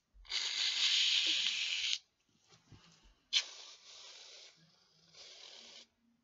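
Reddi-wip aerosol whipped-cream can spraying in three hissing squirts: a long loud one of about a second and a half, a second that starts with a sharp sputter about three seconds in, and a shorter, quieter one near the end.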